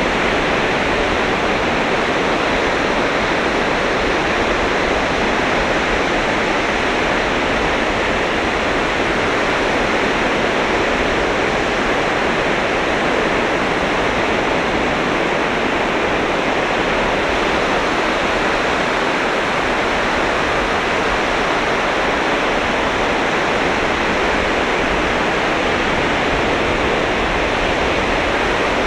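Sea surf on a sandy beach: a steady, even rush of breaking waves, with no single wave standing out.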